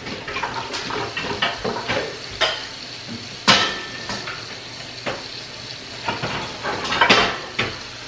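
Plastic bowls, lids and other dishes knocking and clattering as they are rummaged through and pulled out of a lower kitchen cabinet. The knocks come irregularly, the loudest about halfway through, with a quick cluster near the end.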